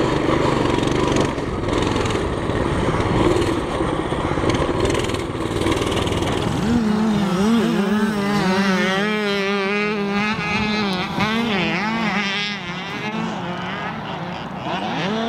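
A Coleman CT200U-EX pit bike's small single-cylinder engine running. It is heard up close at first, buried in rough wind and riding noise. About seven seconds in it becomes a steady hum whose pitch keeps wavering.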